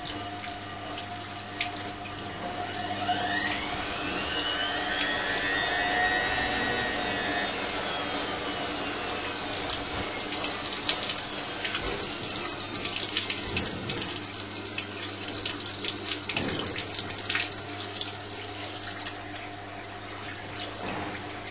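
Hoover A3308 Computer Control 1100 washing machine starting its final spin: the drain pump runs and water gushes out while the drum motor winds up in a short interim spin, its whine rising and then falling away in the first half. These short spins shed water from the load and let the machine's spin-balance circuit judge whether the load is balanced.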